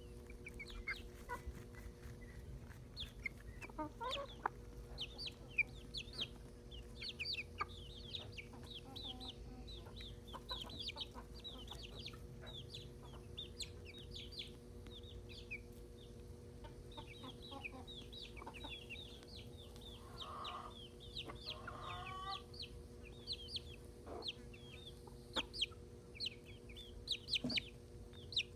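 Silkie chickens clucking softly as they peck at food, with many short high chirps scattered throughout. A couple of louder, rougher calls come about twenty seconds in.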